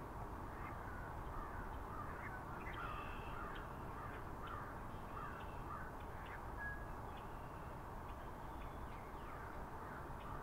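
Backyard birds calling again and again in short sliding notes over a steady low rumble of wind on the microphone.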